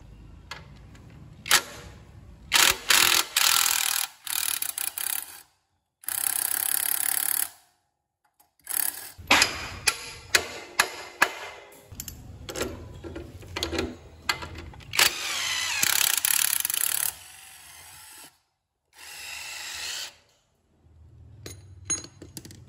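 Cordless drill run in several separate bursts of a second or two each, its pitch wavering, with sharp metallic clicks and taps between the bursts.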